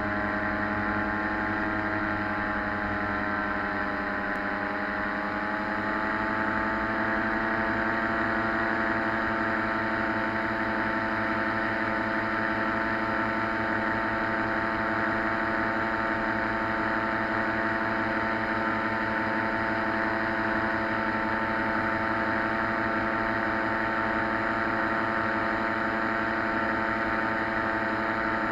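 Paratrike's propeller engine running steadily in flight. Its pitch sags a little about four seconds in, then climbs back and holds steady.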